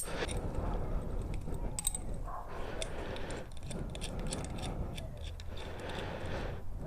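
Scattered light metallic clicks and clinks of hand tools and motorcycle shifter and rearset parts being handled and worked loose, over a soft rustle.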